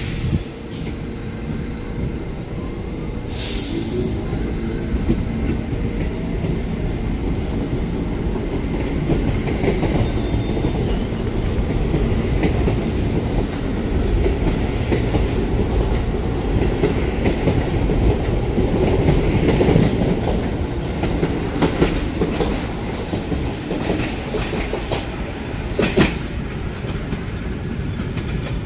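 B train of R68-series subway cars rolling past with a heavy low rumble and wheel clatter over the rails. It grows louder to a peak about two-thirds through, then eases. A few sharp clanks stand out, one near the start and one near the end.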